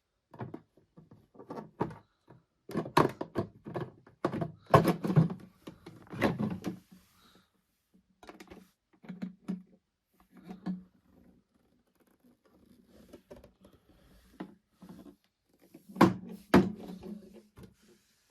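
Handling noises: irregular thunks, knocks and clicks of objects being moved and set down, busiest in the first seven seconds and again with two sharper knocks about sixteen seconds in.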